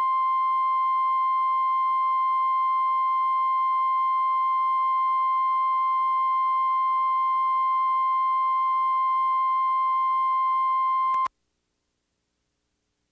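Steady 1 kHz line-up tone played with SMPTE colour bars at the head of a videotape, a single unbroken beep that cuts off suddenly near the end.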